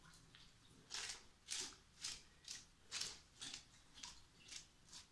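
A brush drawn through a wet, shampoo-lathered curly wig in quiet, regular strokes, about two a second, starting about a second in.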